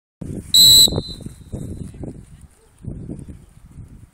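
Referee's pea whistle: one short, sharp, very loud blast about half a second in, the signal that the penalty kick may be taken. Low background noise follows.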